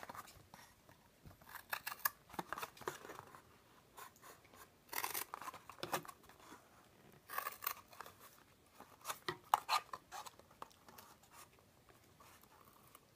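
Scissors cutting into a thin paperboard box, a series of irregular short snips with pauses between them.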